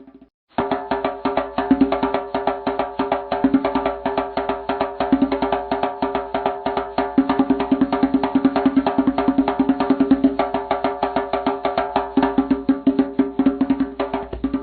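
Background music with a fast, steady percussive beat over sustained notes; it cuts out for a moment at the start and then restarts.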